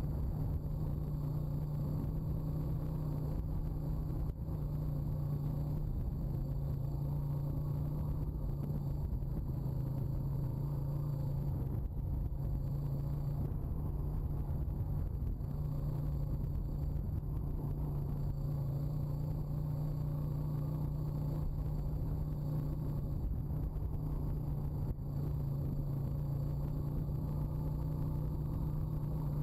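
Honda ATV's single-cylinder four-stroke engine running at a steady, moderate pace under way, with only small changes in pitch, over a low rumble from the ride.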